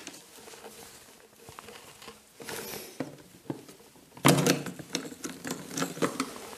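Hands fitting plastic parts on a BIG Bobby-Car Next ride-on toy: soft rustling and a few light clicks, then a louder clatter of handled plastic about four seconds in.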